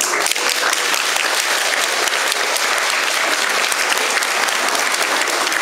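Audience applauding: many hands clapping at once, starting abruptly and holding steady.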